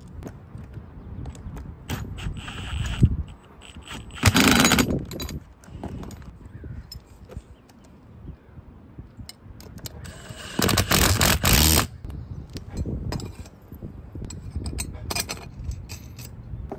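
Cordless power ratchet running in two short bursts, the second a little longer, as it drives the bolts fastening an aluminium tilt-leg bracket to a solar mount post. Metal brackets and hardware clink in between.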